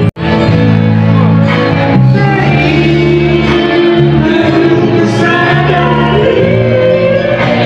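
Music with singing, continuous and loud, with a very brief dropout right at the start.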